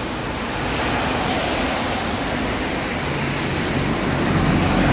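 Steady rush of heavy rain and running water, with a vehicle passing on the wet road, growing louder near the end.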